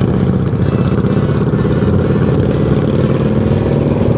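Motorcycle engines running steadily at a slow cruising pace: a Yamaha XJ6's 600 cc inline-four under the rider, with a cruiser motorcycle close ahead.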